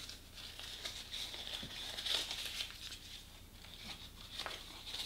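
Tetra Pak paper being scrunched up by hand, giving a run of small irregular crinkles that are busiest about two seconds in and again near the end.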